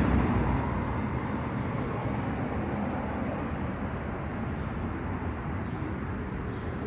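Steady outdoor background noise: a low, even rumble with no distinct events, typical of street ambience.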